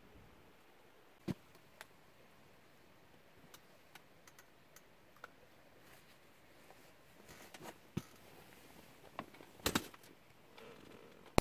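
Faint, irregular clicks and ticks over a quiet background, about a dozen of them, with one sharper click about a second in and a small cluster near the end.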